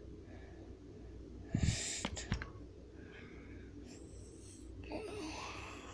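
Breathy, hissing mouth sound effects from a child voicing a toy battle: a loud puff of hiss with a few sharp clicks and knocks about a second and a half in, then fainter hisses and another breathy burst near the end.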